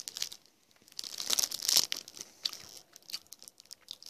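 Clear plastic snack-cake wrapper crinkling close to the microphone in irregular crackles, thickest about one to two seconds in.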